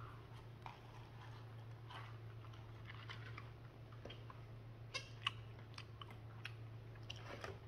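A person chewing a mouthful of food, faint, with scattered soft clicks and two sharper ones about five seconds in, over a steady low hum.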